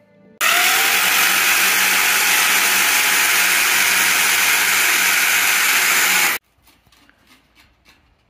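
Handheld power drill boring into a brick wall: the motor spins up with a rising whine, runs steadily for about six seconds, then stops abruptly.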